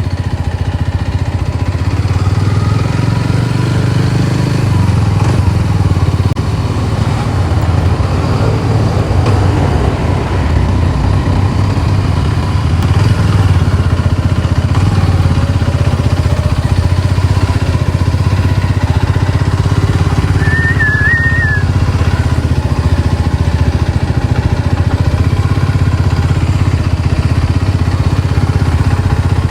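Kawasaki Meguro S1's 233 cc single-cylinder engine running as the motorcycle is ridden, its sound rising and easing with the throttle. A brief high chirp cuts in about two-thirds of the way through.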